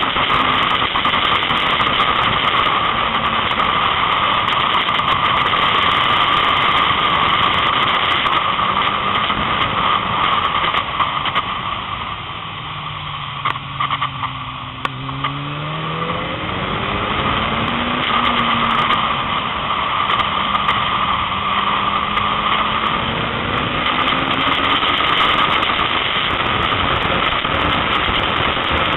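Kawasaki ZX-9R's inline-four engine at track speed, nearly buried in wind noise on the onboard microphone. About halfway through, the engine note drops as the bike slows into a bend, then climbs again as it accelerates out.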